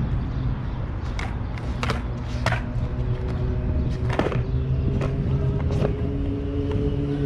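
Freestyle skateboarding on stone paving: the wheels roll with a steady rumble, and the board clacks sharply against the ground several times as the skater steps and flips it.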